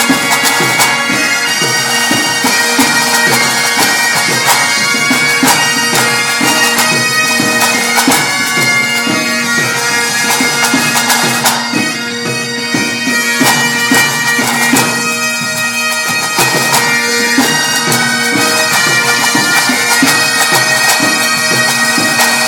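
A Breton bagad pipe band playing: massed bagpipes sounding a melody over their steady drone, with snare drums beating the rhythm. The music goes briefly softer about halfway through.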